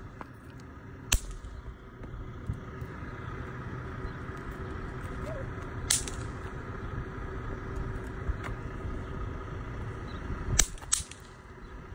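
Bang snaps (paper-twist snappers) thrown onto asphalt, popping with sharp cracks: one about a second in, one about six seconds in, and two in quick succession near the end.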